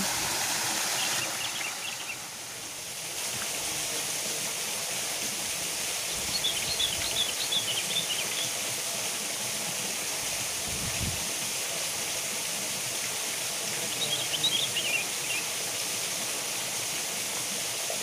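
Small waterfall pouring into a pool: a steady rush of splashing water, with a few short high chirps now and then.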